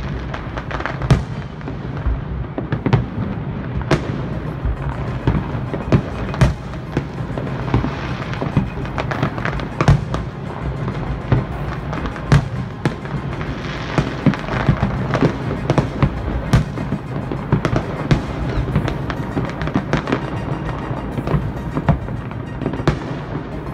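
Large fireworks display: many shells bursting in quick, irregular succession, sharp bangs over a continuous rumble of further explosions.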